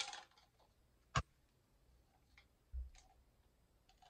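Plastic bottle of bubble solution being handled over a sink: a short rustle at the start, a sharp click about a second in, a dull low knock near three seconds, and a couple of small ticks after.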